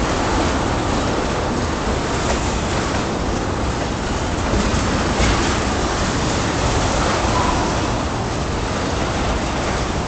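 Freight train of ethanol tank cars rolling past: a steady rumbling rush of steel wheels on rail, with a few faint clicks from the wheels.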